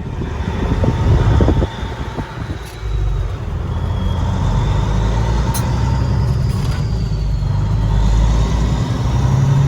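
Heavy truck engine running with a steady low drone, somewhat uneven and louder in the first second and a half.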